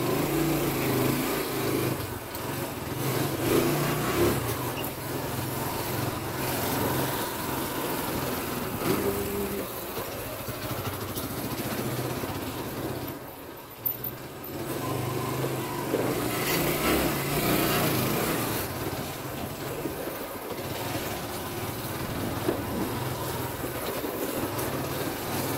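Small motorbike engine running at low speed as it rolls through narrow lanes, with wind and road noise; it eases off briefly about halfway through, then picks up again.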